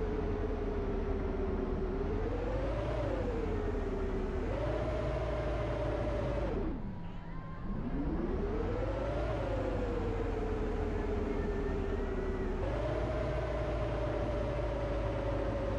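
Bus running, its drivetrain whine falling and rising in pitch with road speed over a steady low rumble. About seven seconds in the whine drops low and the sound briefly quietens, as when slowing almost to a stop, then climbs again. It jumps up in pitch twice, once near the middle and once past the two-thirds mark.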